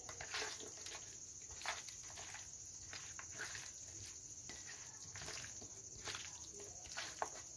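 A bare hand mixing raw chicken pieces with masala in a stainless steel plate: faint, irregular squelches and taps of the meat against the metal.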